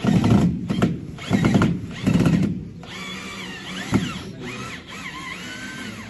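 Polystyrene foam packing in a wooden crate rubbed and pulled by gloved hands: a few loud scrapes in the first two and a half seconds, then high squeaks that rise and fall, with a single knock about four seconds in.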